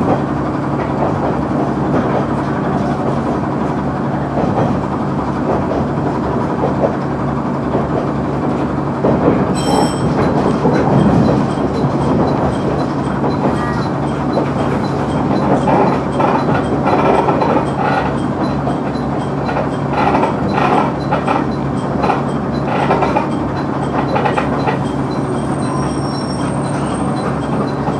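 Cabin sound of a JR KiHa 100 diesel railcar under way: the diesel engine runs steadily under the rumble of the wheels on the rails. Wheels click over rail joints in the second half. There is a brief high-pitched tone about ten seconds in and a faint high squeal near the end.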